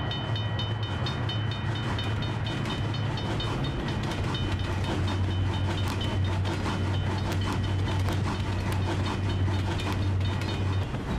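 Train running past: a steady low rumble with the clickety-clack of wheels clicking over rail joints, and a high ringing that pulses rapidly over it.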